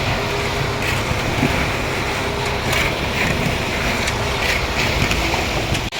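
Concrete mixer running with a steady mechanical noise and a faint hum, dropping out for an instant near the end.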